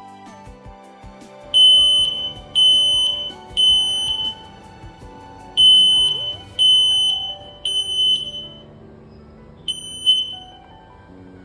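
CPVAN SM11 smoke alarm's piezo sounder beeping at a shrill, steady high pitch in two groups of three beeps with a pause between, then a single beep near the end. Background music plays underneath.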